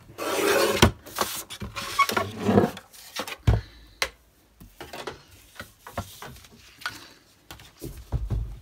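A sheet of patterned paper being rubbed and slid across a cutting mat. The rustling is loudest in the first few seconds, then gives way to scattered light taps and clicks as the paper is handled, with a low thump near the end.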